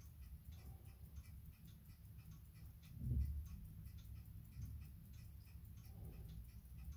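Soviet Komandirskie Vostok wristwatch with a 2234 mechanical movement ticking faintly and evenly, running after being wound. There is a dull low bump about three seconds in.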